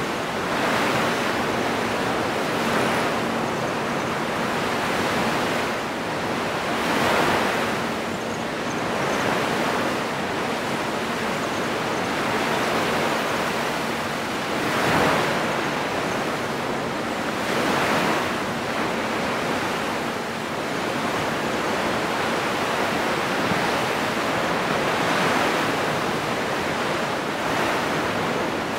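Surf breaking and washing up a sandy beach, a steady rush of noise that swells and ebbs every few seconds as each wave comes in, loudest about halfway through.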